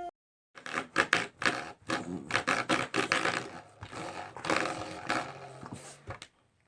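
A dog growling in a rapid series of rough bursts, which stops abruptly about six seconds in.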